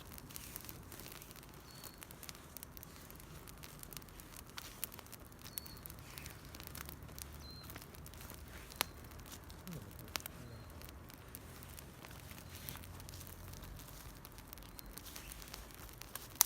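Small wood campfire crackling, with irregular sharp pops and one louder pop about nine seconds in.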